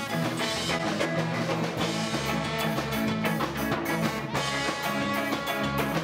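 Ska band playing live: guitar and drums with a horn section of trombone and tenor saxophone, at a steady, even loudness.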